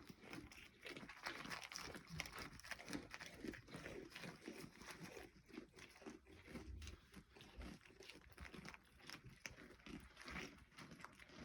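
Faint, irregular crunching, a few crunches a second throughout.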